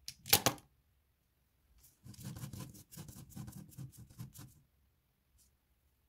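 Pens clattering into a pen holder built from small magnetic metal balls: a sharp clatter about a third of a second in, then about two and a half seconds of rapid clicking and rattling.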